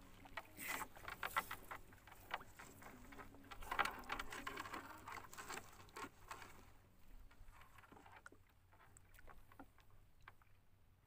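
Wet nylon gill net being hauled by hand into a wooden boat: water dripping and pattering off the mesh as it comes up, with the rustle of the net and small clicks against the hull. It is busiest for the first seven seconds or so, then quieter with scattered clicks.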